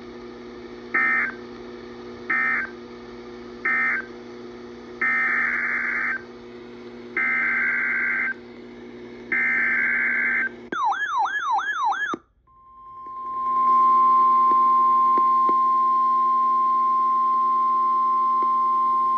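Emergency Alert System SAME data bursts over weather radio. Three short end-of-message bursts are followed by three longer header bursts for the next warning, then a brief warbling sweep. From about 12 seconds in, a single steady alert tone near 1 kHz (the 1050 Hz weather radio warning tone) fades in and holds, with a steady hum underneath.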